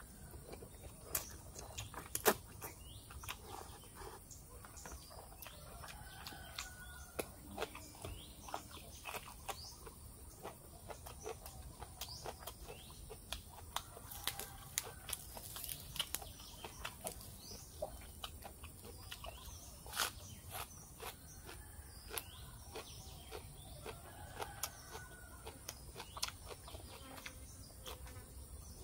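Close-miked eating sounds: slurping rice noodles and chewing, with many short mouth clicks and smacks. A chicken clucks a few times in the background.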